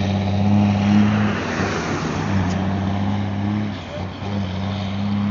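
Road vehicle engine droning steadily with road and wind noise while driving behind a loaded dump truck; the low hum breaks off and picks up again twice.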